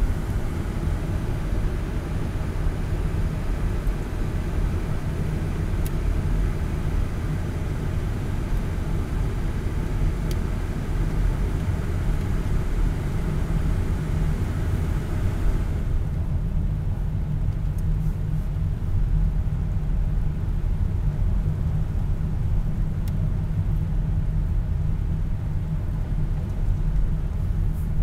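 Car cabin noise while driving: a steady low rumble of engine and tyres, with a higher hiss on top that drops away suddenly about sixteen seconds in.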